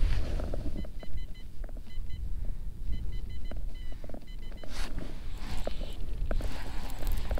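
A Humminbird fish finder beeping in quick groups of short, same-pitched electronic beeps, over a steady low rumble of wind on the microphone. Rustling of clothing and gear comes in over the second half.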